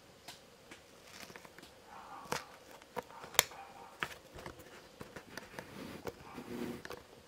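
Scattered light clicks, taps and soft rustles of handling noise from a handheld camera being moved, with two sharper clicks a little over two and about three and a half seconds in.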